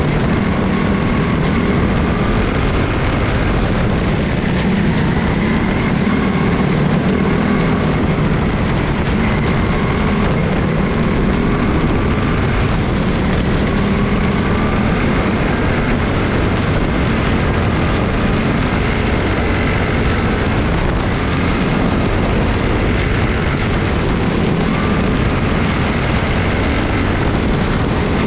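Small single-cylinder Honda engines of several quarter midget race cars running together at race pace, a loud steady buzz whose pitch wavers slightly up and down as the cars circle the track.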